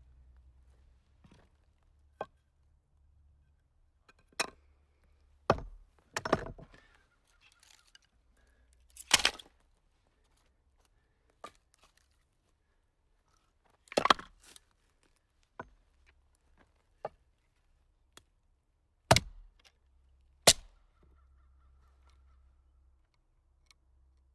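Firewood being split: a series of sharp chopping blows at irregular intervals, about a dozen in all, a few of them longer and more drawn out than the rest.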